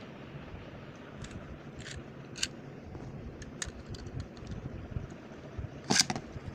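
Scattered light clicks and taps of a metal Beyblade top and its plastic launcher being handled over a plastic bowl, with a louder clatter of clicks about six seconds in as the launcher is brought down over it.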